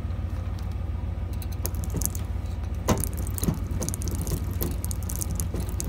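Manual crank tongue jack being turned, its gears giving an irregular run of clicks and clunks, loudest about three seconds in. The crank now drives the gear through an oversized finishing nail used as a makeshift shear pin in place of the sheared original. A steady low rumble runs underneath.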